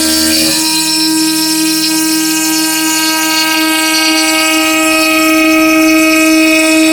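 Spindle of a homemade CNC router running with a steady whine. A lower hum underneath changes about half a second in.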